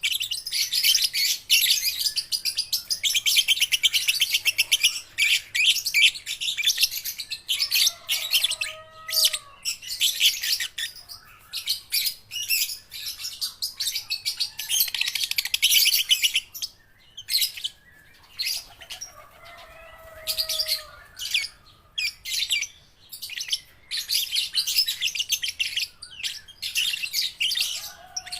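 A young lovebird, still learning its song, chattering in long runs of rapid, high chirps separated by short pauses. A few lower, softer calls come in between.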